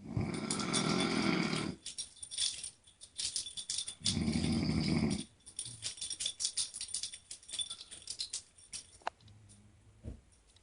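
A woman snoring loudly: two long snores about four seconds apart. A rattly crackle runs through and between them.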